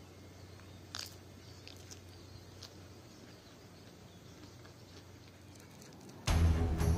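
Faint outdoor background with a single sharp click about a second in and a few light ticks, then music with a steady beat starts suddenly near the end, much louder.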